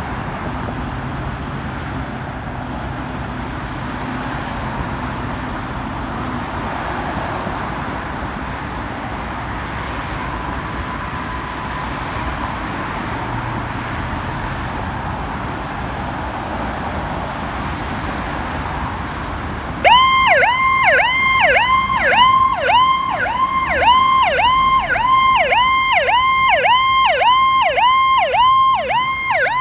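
A fire engine's steady engine rumble with street noise for about twenty seconds, then its electronic siren switches on loud in a fast repeating warble, about two sweeps a second.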